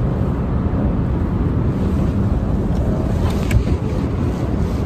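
Steady low rumble inside a waiting car, with a few light clicks about three and a half seconds in.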